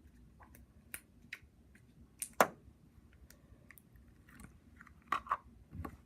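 Slime being squeezed and stretched in the hands, giving scattered wet, sticky clicks and pops, with one louder pop about two and a half seconds in and a quick few near the end.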